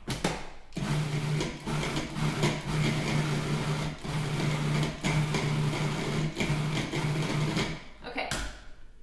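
Countertop food processor running in short pulses, chopping a sticky mixture of pitted dates, maple syrup and warm water into a thick paste. The motor hum breaks off briefly about every half second to a second and stops near the end.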